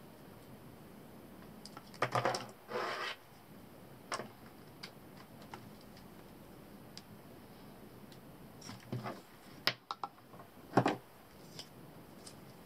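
Handling noise of thin power cables and small plugs being worked with the hands: scattered light clicks, with two louder rustling bursts about two seconds in and another cluster of clicks and a short burst near the end.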